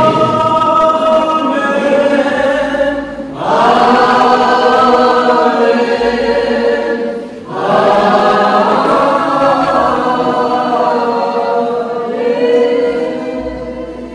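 A group of voices singing a hymn together in long, held notes, with short breaths between phrases about three and a half and seven and a half seconds in.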